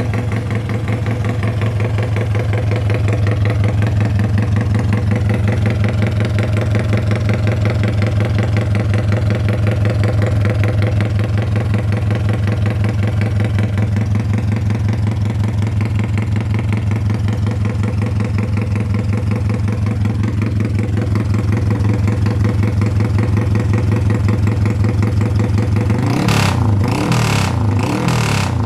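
Carburetted motorcycle engine with a 56 mm piston idling with a fast, lumpy, panting rhythm. Near the end the throttle is blipped a few times, the pitch rising and falling with sharp cracks.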